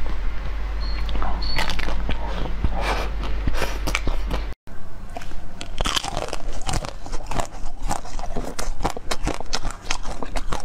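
Close-miked eating: crunchy bites and chewing into frozen sweets, with crackling crunches. The sound drops out for an instant a little before halfway, and after that the crunching bites come thicker and faster.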